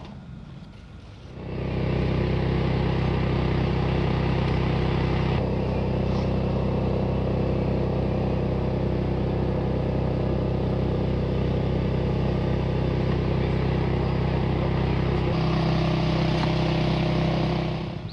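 An engine running steadily at an even speed. It comes in about a second and a half in and drops away just before the end, with small shifts in its tone along the way.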